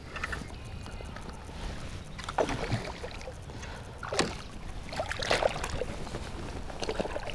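Small largemouth bass splashing and thrashing at the water's surface as it is reeled in on a spinning rod beside a float tube. There are several separate splashes, the strongest a little past the middle.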